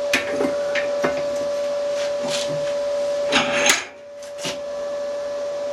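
Gas torch flame hissing steadily with a faint steady whistle while heating a seized broken stud and its welded-on nut, with scattered metallic clicks and knocks. The hiss drops away briefly about four seconds in, then returns.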